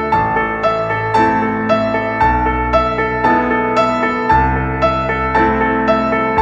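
Background music: a keyboard playing a steady run of notes, about two a second, over held low notes.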